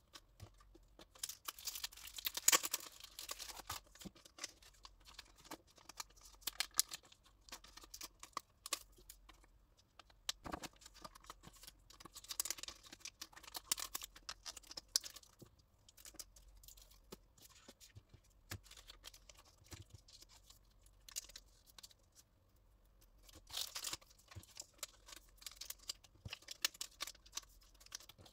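Clear plastic wrapping crinkling and rustling as photocards are pulled out and handled, in several louder bursts, with light clicks and taps of cards being set down on a table.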